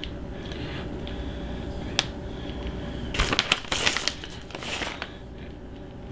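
Plastic bag of shredded mozzarella crinkling in a few short bursts as a hand digs into it, about three seconds in and again near five seconds, over a low steady hum. A single sharp click comes about two seconds in.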